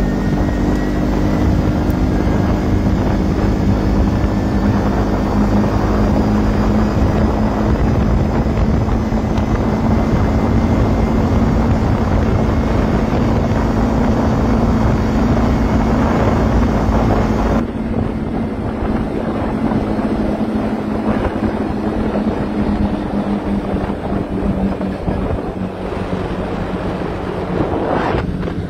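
Rental ATV's engine running steadily while riding along a road, with wind buffeting the microphone. The sound gets somewhat quieter about two-thirds of the way through.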